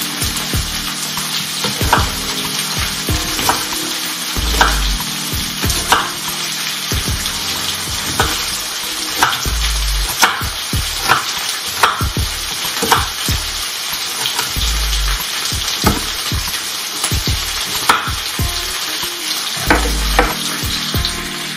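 Chef's knife chopping onion on a wooden cutting board, sharp knocks about once a second, over a steady sizzling hiss from frying.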